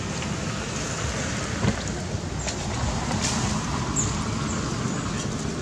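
Steady low wind noise on the microphone outdoors, with a few faint clicks and brief high chirps.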